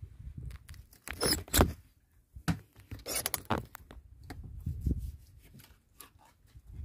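Clinks, knocks and scraping of bowls and utensils during a meal, with two louder clattering stretches about one and three seconds in, over a low rumble.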